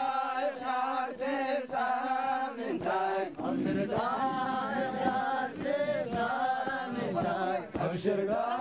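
A group of Somali rebel fighters chanting a song together in unison, in short repeated phrases.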